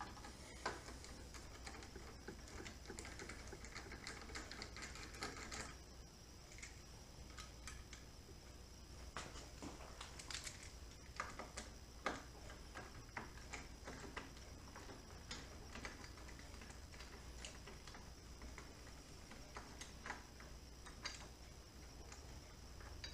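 Faint, scattered clicks and light taps of a screwdriver and small screws as a motorcycle's handlebar switch housing is unscrewed and taken apart, with light rustling of handling in the first few seconds.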